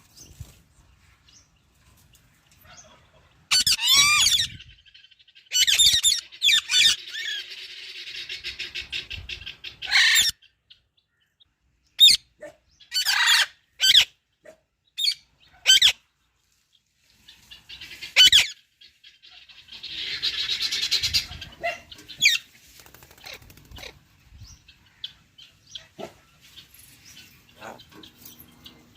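Parrot calling: loud, harsh screeches and chirps, some short and sharp, some running on for a second or two as chattering, with a gap in the middle and only faint chirps near the end.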